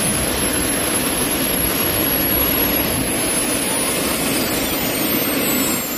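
Three small turbojet engines on a go-kart running under power: a steady, loud jet roar with a high turbine whine on top that starts to drop slightly in pitch about halfway through.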